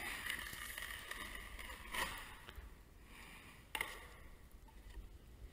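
Wide drywall taping knife pulled across wet setting-type joint compound on a ceiling: a faint scraping swish that fades out about halfway through. Two short clicks of the knife come about two seconds in and near four seconds.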